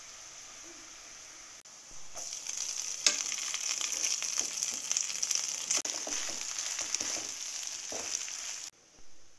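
A raw-mango tempering sizzling in a frying pan. About two seconds in the sizzle grows louder, with a spoon scraping and clicking against the pan as rice is stirred in. It cuts off suddenly shortly before the end.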